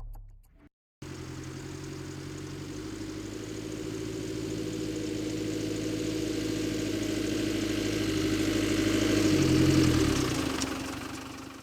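A steady engine-like running sound that swells gradually, is loudest near the end, then fades away.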